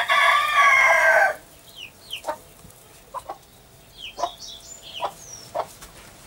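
A Muscovy duck hen gives one loud, hoarse call lasting just over a second. After it, her ducklings peep softly in scattered short high notes that slide downward.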